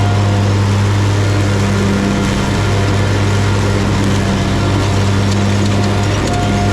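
Exmark X-Series riding mower's engine and cutting deck running steadily at mowing speed, a loud, even hum.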